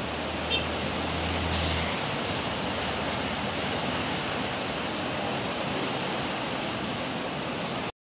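Steady rushing of a river in flood, fast brown water churning along a bridge's side. A low hum runs under it for about the first two seconds.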